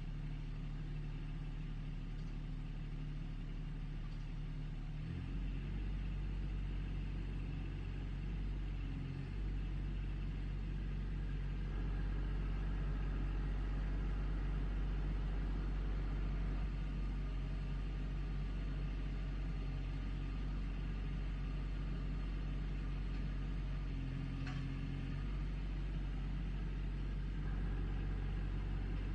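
Backhoe engine running steadily, its pitch and load shifting a few times as the machine works.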